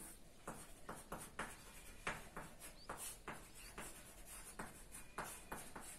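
Chalk writing on a chalkboard: a faint, irregular run of short taps and scrapes as the chalk strokes out letters.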